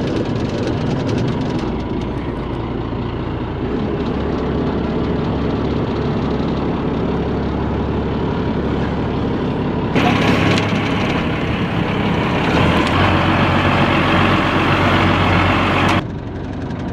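Fishing boat's engine running at a steady idle, a low hum under the deck. About two-thirds of the way in, a louder rushing hiss joins it for several seconds and then cuts off suddenly.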